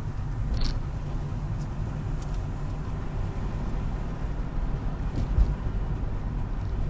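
A car driving along with steady low road and engine rumble, with a few faint short knocks and a brief louder bump about five seconds in.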